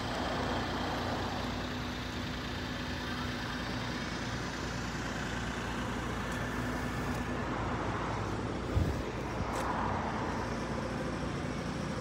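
Steady road traffic noise with a faint steady hum, and a brief low thump about nine seconds in.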